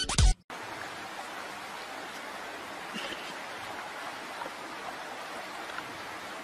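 A snatch of music cuts off at the very start, followed by a steady rushing noise with a few faint short chirps about three seconds in.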